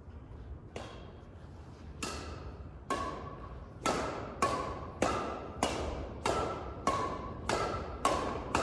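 Badminton rackets striking a shuttlecock back and forth in a fast rally: sharp pings, a few spaced out at first, then evenly about every 0.6 s from about four seconds in, each ringing on in the hall's echo.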